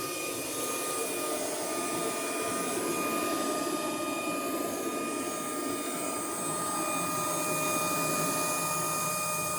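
Coal forge fire under forced air: a steady rush of the blast through the coals, with a steady motor whine from the blower.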